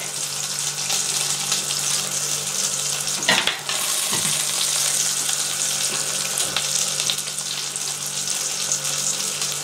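Steak and pork chops sizzling steadily on the wire rack of a grill pan under a hot oven grill, with a steady low hum underneath.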